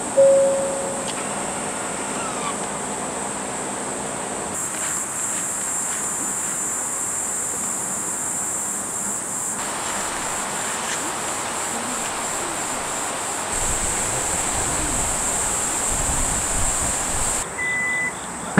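Crickets chirping in a steady, high-pitched drone. A low rumble joins about two-thirds of the way in, and a short high beep sounds just before the end.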